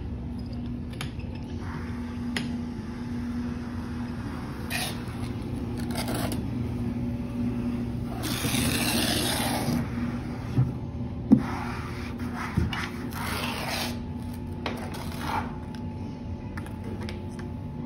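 Sand scraping as hand tools are drawn through the sand on a spinning sand-pattern disc, in several strokes, the longest about eight seconds in. A few sharp taps come around eleven to thirteen seconds, over a steady low hum.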